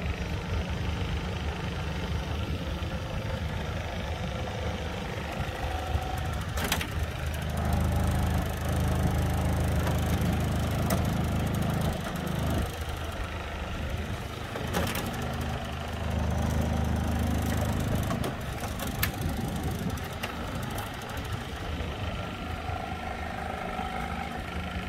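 Air conditioner running with a low, steady hum and rumble that swells louder twice for a few seconds, with a few sharp clicks or knocks along the way.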